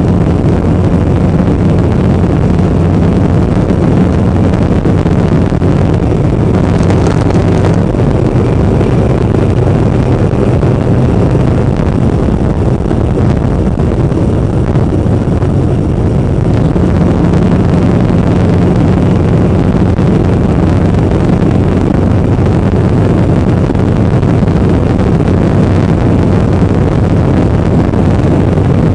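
Motorcycle engine running steadily at road speed, heard from the bike itself, under heavy wind rush on the microphone. The engine hum eases for several seconds in the middle, then steadies again.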